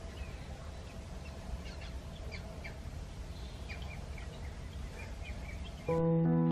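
Small birds chirping outdoors, a scattered string of short, quick downward chirps over a steady low background rumble. Piano music starts suddenly just before the end.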